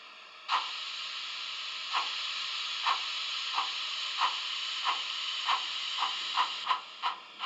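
Steam sound from the Märklin/Trix BR 78 HO model locomotive's digital sound decoder. A steady steam hiss starts about half a second in. Over it, short exhaust chuffs quicken from one every second and a half to about three a second.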